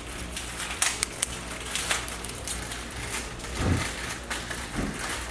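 Light metallic clicks and scraping as the oil control ring's expander is worked by hand into the bottom groove of an aluminium piston, with scattered small ticks.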